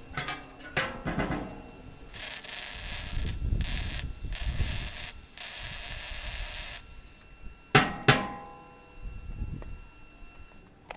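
Hammer blows on steel, as bent steel on a truck flatbed is straightened: a few quick knocks at the start, and near the end two hard ringing strikes about a third of a second apart. In between come three stretches of rough noise, each about a second and a half long.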